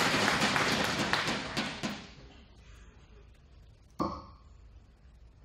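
Audience applause dying away over the first two seconds, then a single steel-tip dart striking the dartboard with a sharp thud and brief ring about four seconds in.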